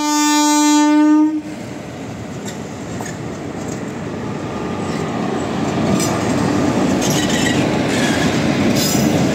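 A WAP-4 electric locomotive sounds one steady horn blast that cuts off about a second in. Then the locomotive and its coaches roll past close by, the rumble growing louder, with occasional clacks of wheels over rail joints.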